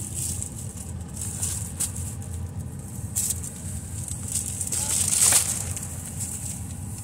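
Plastic grocery bags and packaging rustling and crinkling as groceries are set onto a car's back seat, loudest about five seconds in. A steady low rumble runs underneath.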